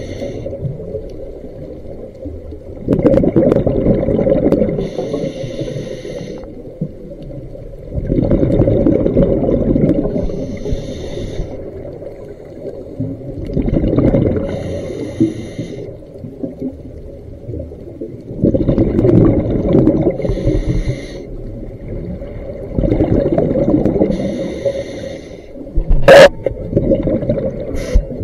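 Scuba diver breathing through a regulator underwater: a hiss on each inhale and a rush of exhaled bubbles, about every five seconds. One sharp click near the end.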